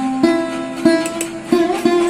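Background music of a plucked string instrument playing single notes, four plucks about half a second apart.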